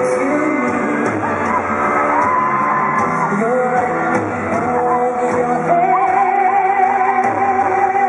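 Live pop music played loud through an arena sound system, with singing and yelling from the crowd.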